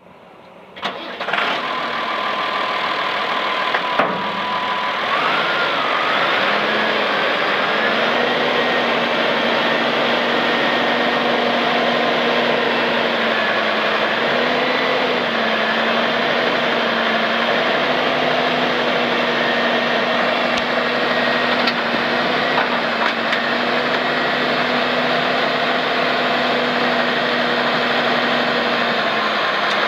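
Massey Ferguson 6180's six-cylinder diesel engine starting about a second in, then running steadily while the front loader is worked. Its pitch rises a few seconds after starting and then holds level.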